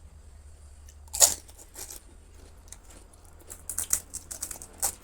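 Crisp, hollow pani puri shells crunching: one loud crack about a second in, then a run of smaller crunches near the end.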